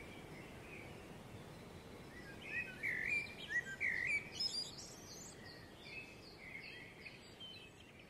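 Small songbirds singing and chirping in short, varied phrases, loudest in a cluster about two and a half to four and a half seconds in, then fainter calls.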